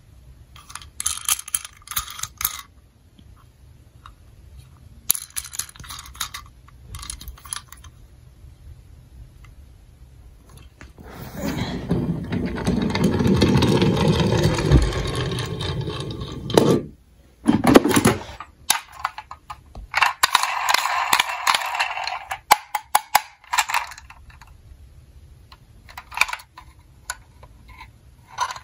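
Small plastic Tonka toy police car being handled, with bursts of clicks and rattles. Midway, about five seconds of continuous rolling, whirring noise as the car runs on a tabletop, cutting off abruptly.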